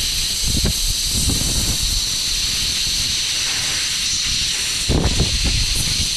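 Compressed air hissing steadily from an air blow gun, blasting leftover wash water out of the opened housing of a jacket cooling fan, with a low fluttering rumble under the hiss.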